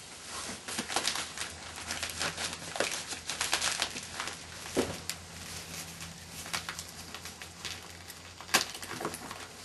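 Irregular crinkling and rustling of wrapping being handled and pulled at around a parcel of china, which is bundled in a quilted blanket protector, with a sharper crackle near the end.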